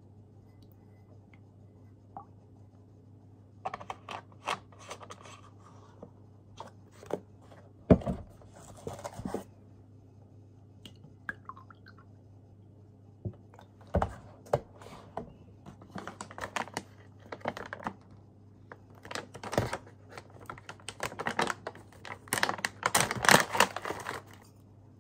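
Hands handling drink cartons and packaging on a tabletop: clicks and light scrapes, two sharp knocks as cartons are set down, then a plastic bag crinkling, loudest near the end. A low steady hum runs underneath.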